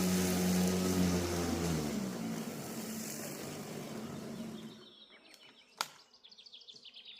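Einhell GP-CM 36/52 cordless lawn mower's electric motor is switched off. Its steady hum falls away about a second and a half in, and the whoosh of the spinning blade dies down over the next few seconds. A single sharp click follows, then faint bird chirps.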